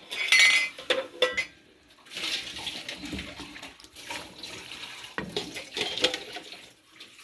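A silicone spatula stirring chicken pieces through a thick yogurt-and-spice marinade in an unheated non-stick pan: wet scraping and squelching against the pan, with no sizzle. There are a few light knocks about a second in.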